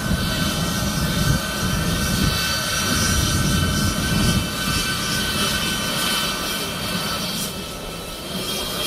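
A twin-engine jet airliner's turbofan engines run loudly at taxi power as the plane turns on the runway: a steady rumble with a high, even whine over it.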